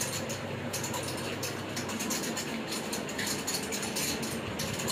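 Steady low mechanical hum from a small motor, with light rustling and clicks over it. The deepest part of the hum eases off about two seconds in.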